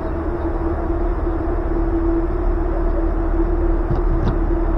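Steady hum and low rumble of an air-supported sports dome's inflation blowers and air handling, one even tone over a deep drone, with two short faint knocks about four seconds in.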